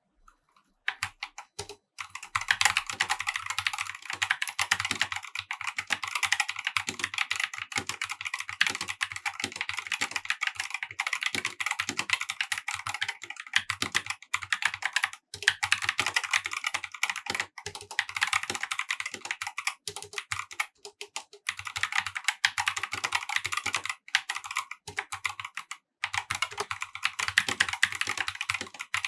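Fast, continuous typing on a Corsair K70 RGB TKL OPX mechanical gaming keyboard with optical-mechanical (OPX linear) switches: a dense clatter of keystrokes starting about a second in, with a few brief pauses.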